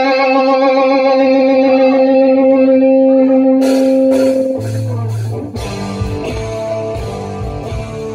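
Rock band music: one long held note with a slight wobble, then drum hits about three and a half seconds in, and the full band with electric guitar playing on from about five seconds.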